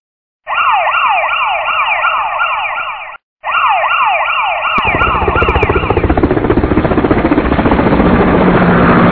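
A siren wailing in fast repeated downward sweeps, about two or three a second, breaking off briefly about three seconds in. About five seconds in, a loud rough noise with a fast rattle comes in and takes over as the siren fades.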